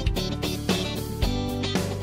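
Background music: strummed guitar chords over a steady beat.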